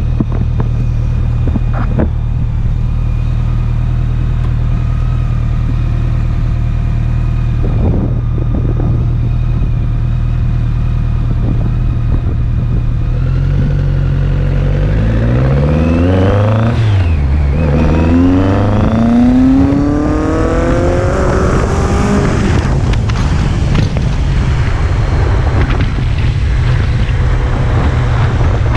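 BMW K-series 'flying brick' motorcycle engine running steadily. About halfway through it accelerates: its pitch climbs, drops briefly at a gear change, and climbs again before settling back to a steady note.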